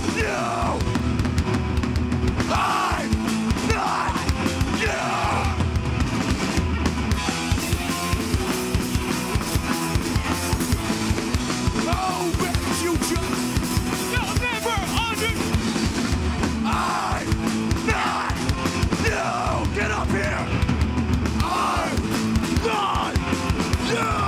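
Hardcore band playing live: distorted electric guitars, bass and a drum kit, with shouted vocals coming in short bursts every few seconds.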